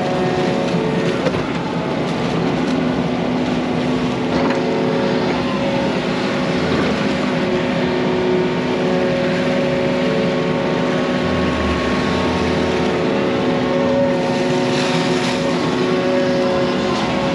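Yanmar mini excavator's diesel engine running steadily, with a broad, even hiss of water flowing out through the breached pond dam beneath it.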